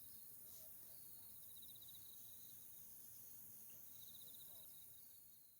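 Faint insect chirping: short pulsed trills recurring every few seconds over a steady high-pitched drone, typical of crickets on an autumn evening. The sound fades out near the end.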